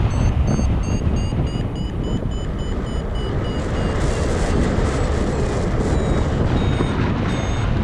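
Wind rushing over the camera microphone in flight, with a paragliding variometer beeping rapidly, a few beeps a second. The beeping drops out for a couple of seconds around the middle, then resumes at a slightly different pitch.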